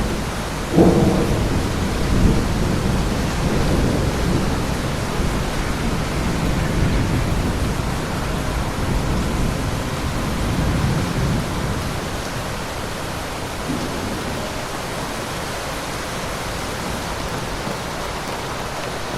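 Thunderstorm: steady heavy rain with a sudden thunderclap about a second in, its low rumble rolling on for several seconds and dying away, leaving the rain alone near the end.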